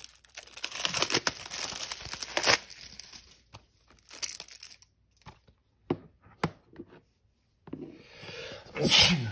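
Plastic shrink wrap being torn and crumpled off a Blu-ray case, crackling for about three seconds, then a couple of light clicks. A loud cough near the end.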